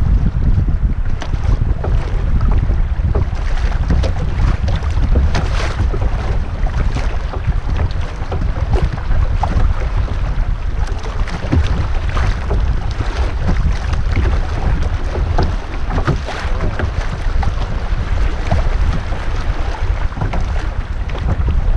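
Wind buffeting the microphone over irregular splashing of river water around a kayak.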